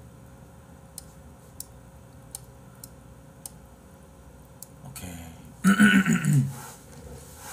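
Faint scattered clicks of a computer mouse and keyboard, then about five and a half seconds in a short, loud, low vocal sound that falls in pitch.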